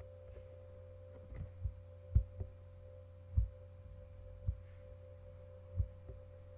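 Steady electrical hum with a faint steady tone, broken by several irregular, dull thumps, the loudest about two seconds in: keyboard keystrokes and mouse clicks on a computer as a value is typed in.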